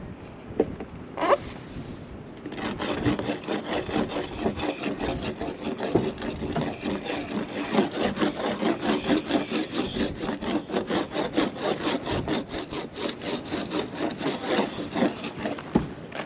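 A bar of surf wax rubbed over a surfboard's deck in quick back-and-forth strokes, several a second, starting about two and a half seconds in, after a couple of short knocks.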